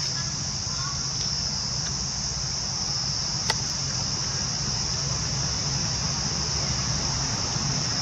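Steady, high-pitched drone of insects calling in the surrounding forest, with a low rumble underneath and a single sharp click about three and a half seconds in.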